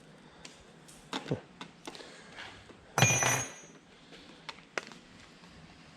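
Workshop handling sounds: scattered clicks and light knocks of hand tools and small parts, with one loud metallic clank about three seconds in that rings briefly.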